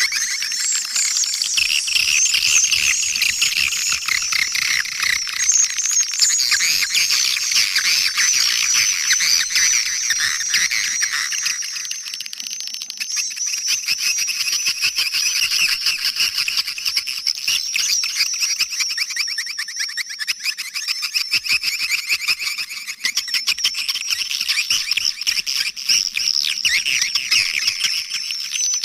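A dense, continuous chorus of swiftlet chirps and twitters, high-pitched with almost nothing low underneath: a recorded swiftlet lure call ('suara panggil') of the kind played to draw swiftlets into a nest house.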